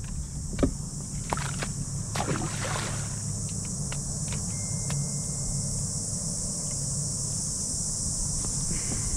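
Steady low wind rumble on the microphone with water around the kayak. There are a few light clicks and knocks in the first three seconds and a splash at the water's surface about two seconds in.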